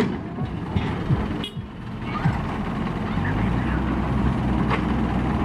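Small diesel dump truck's engine idling steadily, with a few short knocks in the first two seconds; the low engine hum grows fuller from about three seconds in.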